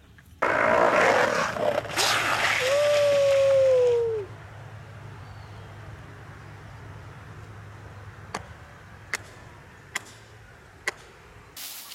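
Longboard wheels sliding across asphalt: a loud rough hiss lasting about four seconds, with a falling tone over its second half. After it, quiet with a low hum and four sharp clicks near the end.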